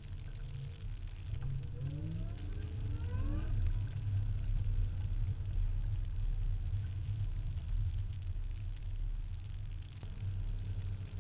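Ford SVT Cobra Mustang's modified V8, heard from inside the cabin. Its revs climb steeply about two seconds in as it accelerates hard, then it settles into a steady low rumble at speed.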